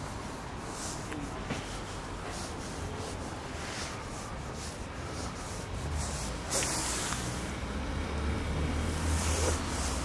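Rubbing and rustling handling noise on a handheld microphone. A low rumble swells in the second half, with short hissing rushes about six and a half seconds in and again near the end.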